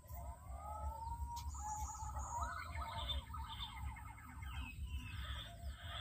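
Green pigeon (punai) calling: a run of rising and falling whistles for about three seconds, followed by shorter, higher chirps.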